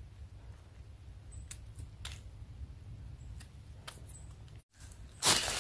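A small knife scraping dirt off the stem of a russula mushroom: a few faint, short scrapes over a low rumble. Near the end comes a sudden loud rustling.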